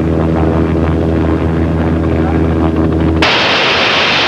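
Steady, even-pitched drone of an aircraft's engines, heard from inside the cabin. About three seconds in it cuts suddenly to a loud rushing of sea water and spray off a warship's bow.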